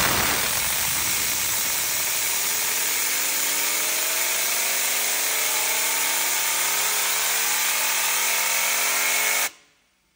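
Compressed-air blow gun hissing steadily as it spins a Ford Focus alternator with its belt removed, the alternator's whir slowly rising in pitch as it speeds up; the air cuts off suddenly near the end. The alternator bearings run quiet, which rules the alternator out as the source of the car's whining noise.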